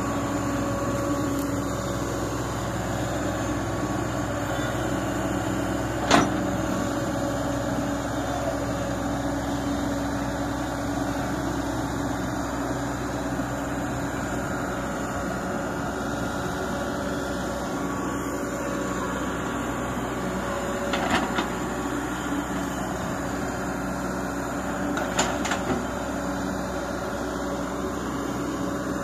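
Sumitomo hydraulic excavator's diesel engine running steadily with an even hum. A few short sharp clicks stand out, once about six seconds in and a couple more near the end.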